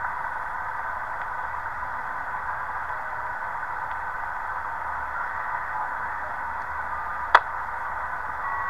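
Shortwave band noise from a small HF QRP SDR transceiver's loudspeaker: a steady, narrow hiss of static as the receiver is tuned across the 20 m amateur band in upper sideband, with no station heard. A single sharp click comes about seven seconds in.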